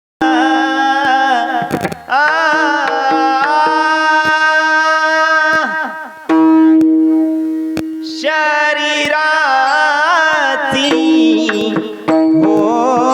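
Marathi kirtan devotional melody sung by a voice with wavering ornaments over a steady drone, with hand-drum strokes accompanying; a long note is held about halfway through.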